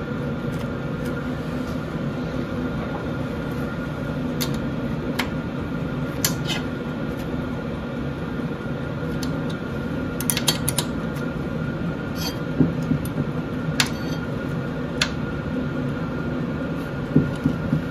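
Scattered small metallic clicks and taps as a grease nipple is threaded into a cast-iron pulley hub, turned by hand and then with a spanner, on a thread that is slipping a bit. Under them runs a steady mechanical hum like a fan.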